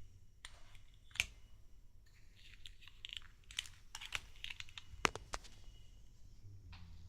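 Hands handling small plastic toy parts and packaging: irregular light clicks and taps with some crinkling, with two sharper clicks about a second in and about five seconds in.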